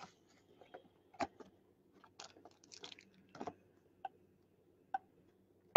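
Faint, scattered crinkles and clicks of clear plastic wrapping and a cardboard trading-card box being handled, with a sharper knock right at the end.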